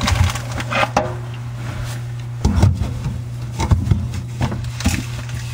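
Irregular knocks, clicks and scraping of metal disposer mounting hardware being worked loose from the sink flange by hand, over a steady low hum.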